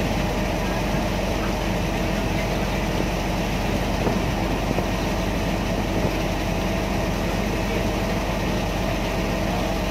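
A river ferry's engine running steadily underway, an even, unchanging hum.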